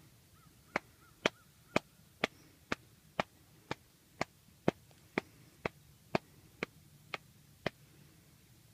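A run of about fifteen sharp clicks, evenly spaced at about two a second, starting about a second in and stopping near the end, over a faint steady background.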